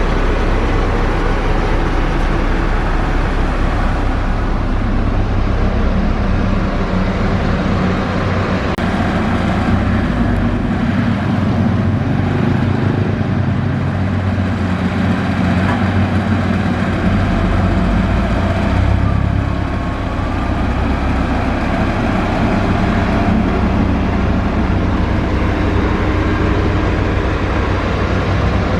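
Heavy construction machine's engine running steadily with a low drone; its pitch shifts a few times around the middle.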